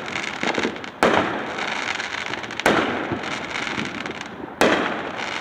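Fireworks bursting: three loud bangs, about a second and a half to two seconds apart, each followed by a long fading echo.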